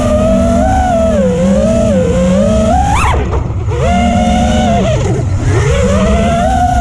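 Xilo Stealth 2206 brushless motors on a 5-inch FPV quadcopter whining and changing pitch with throttle. About three seconds in they spool up hard in a sharp rising punch-out, then briefly drop away before climbing back, with another dip and recovery near the end.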